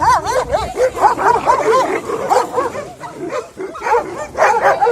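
Several shelter dogs barking, yipping and whining excitedly, their calls overlapping one another, typical of dogs expecting to be fed.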